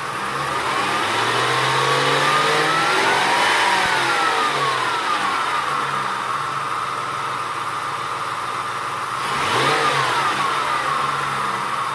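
2003 Ford F-150's 4.6-litre V8 revved slowly up and back down, then revved briefly once more near the end. There is no belt squeal: the new accessory drive belt runs quietly at the 1500 to 2000 RPM range where it used to squeal.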